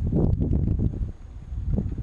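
Wind buffeting the microphone: an uneven low rumble that eases off about a second in.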